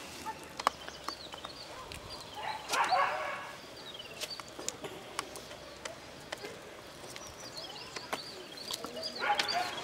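Birds chirping over scattered sharp crackles, with a louder animal call twice, about three seconds in and again near the end.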